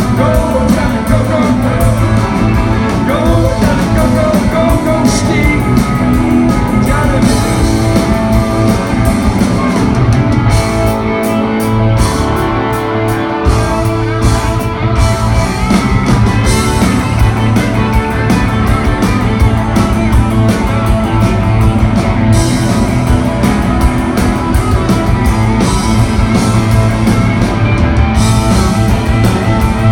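Live rock-and-roll band with electric guitars and drums; a man sings at first, then the two electric guitars play an instrumental break.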